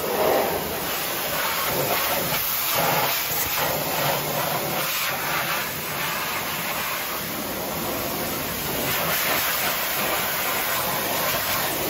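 High-pressure washer jet blasting mud off the underside of a 4x4 Jeep: a steady hiss of spray striking the chassis, shifting in strength as the jet moves across the underbody.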